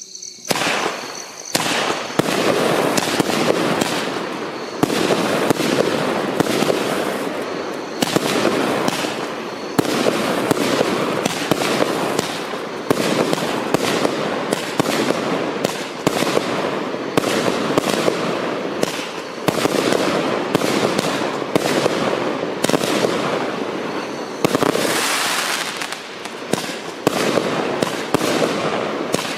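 A consumer firework barrage cake ('Walking Dead') firing a rapid, unbroken string of shots and crackling bursts.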